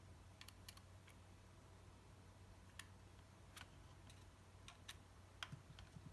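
Faint, scattered small clicks from hands handling a camera body and its parts, over a low steady hum.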